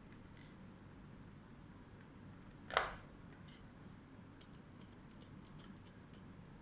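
Faint small clicks of a screwdriver working the screws on a small circuit board, with one louder tap about three seconds in.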